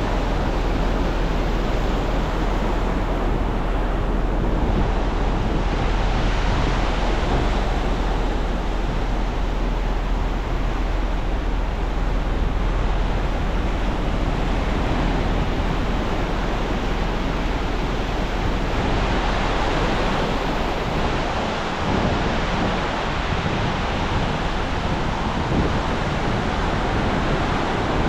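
Ocean surf washing onto a beach in a steady rush, with wind rumbling on the microphone.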